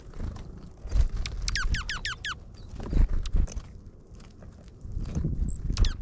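Small birds hopping and pecking at seed on a snowy feeder tray right by the microphone: scattered taps and low thumps. About a second and a half in comes a quick run of five down-slurred chirps.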